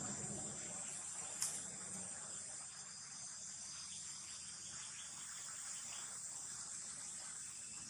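Insects chirring steadily in a high-pitched outdoor chorus, with a single sharp click about a second and a half in.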